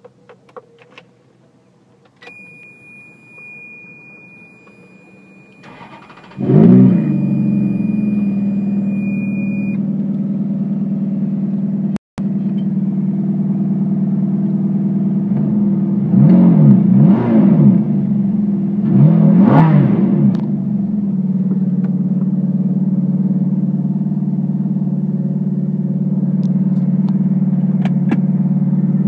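Ferrari F430 Spyder's 4.3-litre V8 started: a steady high electronic tone sounds for several seconds, the starter cranks about six seconds in and the engine catches with a loud flare, then settles into a fast idle. After a brief dropout, two quick throttle blips rise and fall, and the engine idles steadily again.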